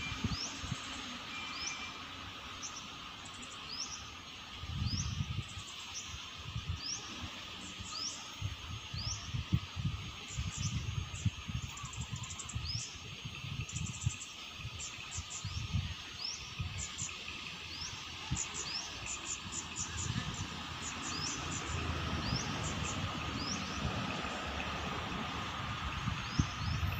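Small birds chirping: many short, rising chirps, sometimes in quick runs. Irregular low gusts of wind buffet the microphone, and a faint steady hum grows slightly louder in the second half.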